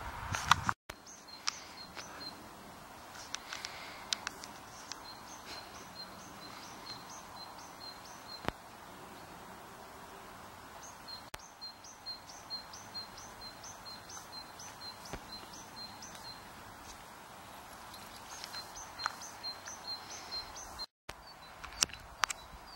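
A small songbird repeating a high two-note call in several runs of about two notes a second, over a steady outdoor background hiss. A loud click sounds near the start, with a few fainter sharp clicks later.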